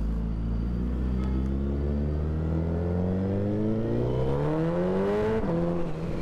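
Suzuki Hayabusa inline-four with a Brocks full-system exhaust pulling from low revs, its pitch rising smoothly for about five seconds. The pitch then drops briefly as it shifts up, and the engine carries on steadily.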